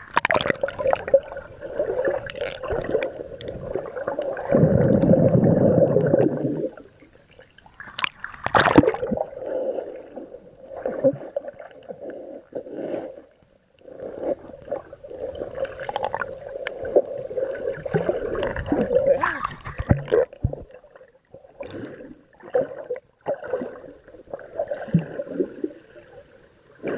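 Muffled sloshing and gurgling of sea water heard through an underwater camera housing, with a louder rush about five seconds in and a sharp knock near nine seconds.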